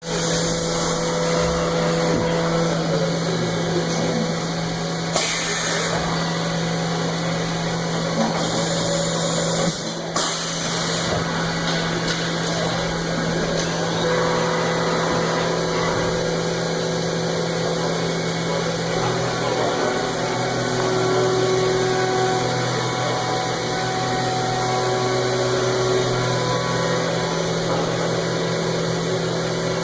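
Haas EC-400 horizontal machining center running, a steady machine hum whose tones shift now and then. Short hissing bursts come about five seconds in and again around nine to eleven seconds.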